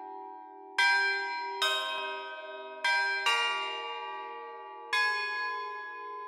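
Bells struck one at a time in a slow, uneven peal: five strikes, each ringing out and slowly fading, over a low, wavering hum of lingering bell tones.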